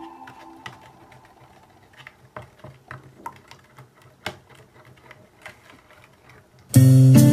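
Small red plastic spoon stirring in a glass bowl, tapping and scraping against the glass in an irregular run of light clicks. Music fades out at the start, and loud guitar music cuts in near the end.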